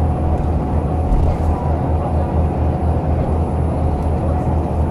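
Bus diesel engine driving through a Voith A51 automatic gearbox, running steadily under way: an even low throb with a faint steady whine above it.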